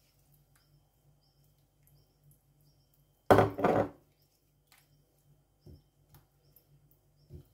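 Wooden spatula stirring sour cream into zucchini in a ceramic baking dish: faint soft wet stirring sounds, and a little past three seconds in a loud clatter of wood knocking against the dish, lasting about half a second.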